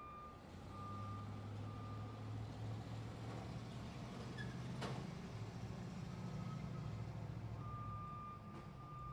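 Truck reversing alarm beeping a single steady tone about once a second, over the low rumble of the truck's engine; the beeps drop away in the middle and come back near the end. A single sharp knock about five seconds in.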